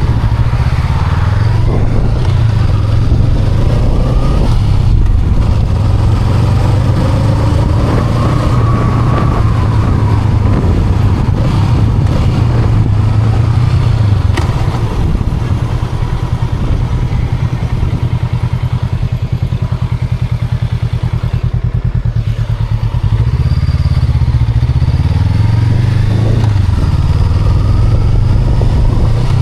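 2023 Honda Rebel 500's 471 cc parallel-twin engine running while riding, engine speed rising and falling with the throttle and gear changes. It eases off into a quieter stretch past the middle, then picks up again about three quarters of the way through.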